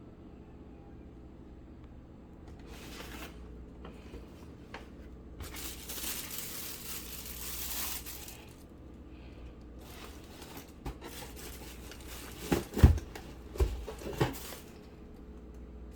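Packaging being opened by hand: a stretch of tearing and crinkling, then more rustling with four sharp thumps close together near the end.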